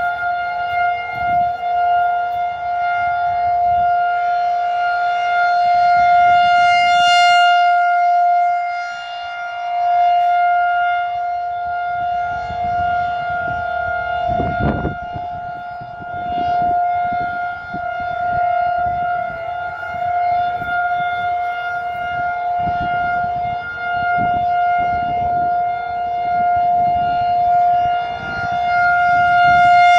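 Outdoor tornado warning siren sounding a steady, unwavering tone during a test, swelling and fading in loudness.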